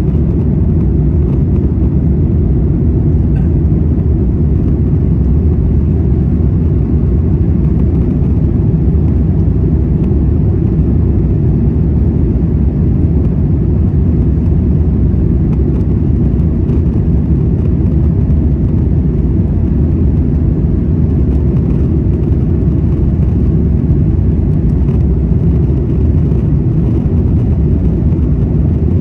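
Steady low rumble of the engines and rushing air inside the economy cabin of an Airbus A350-1000 in its climb after takeoff. The twin Rolls-Royce Trent XWB-97 engines run at climb power, heard through the cabin wall by the window seat.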